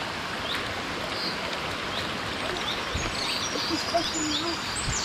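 Birds calling over the steady rush of running water: scattered high chirps, and a quick run of falling high whistles at the very end.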